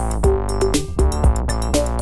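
Electronic background music with a steady drum beat and sustained synthesizer chords.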